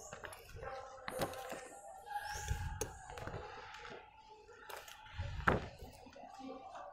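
Thin coloured plastic sheets rustling as they are lifted off glass beakers and laid down on a table, with a few light knocks and taps; the loudest is a soft thump about five and a half seconds in.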